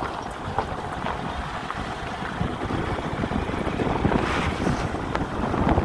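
Car driving along a road, its tyre and road noise under wind rushing and buffeting over the microphone.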